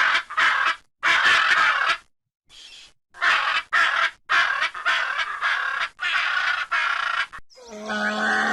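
Crows cawing: a run of harsh calls, some short and one drawn out for about a second. Near the end a different sound with steady held tones cuts in.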